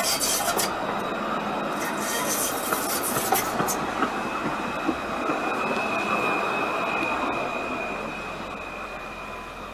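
Alstom Citadis tram passing close by on its rails: running noise with sharp clicks and clatter over the first few seconds, then a steady high whine from about four seconds in as the sound fades.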